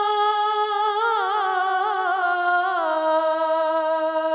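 A man singing a naat unaccompanied, holding one long note. About a second in he sings a wavering ornament, and just before three seconds he steps down to a lower held note.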